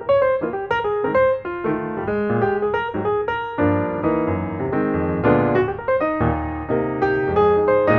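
Piano music, a run of struck notes played several at a time and moving steadily on.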